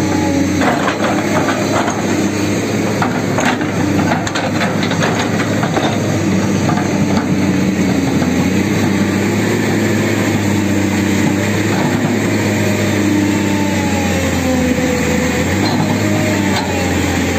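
Tata Hitachi hydraulic excavator's diesel engine running steadily under load while it digs, with clanks and knocks of the bucket striking earth and rocks in the first few seconds. A whine slides down in pitch about two-thirds of the way through.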